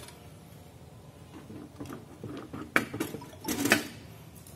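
Handling of a dial kitchen scale's plastic tray as it is set in place, with soft rustles, one sharp click a little under three seconds in, and a brief louder handling noise about half a second later.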